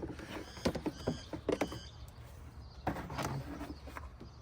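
Plastic air box cover being popped off: a few sharp clicks and snaps of its clips, with brief plastic squeaks about a second in.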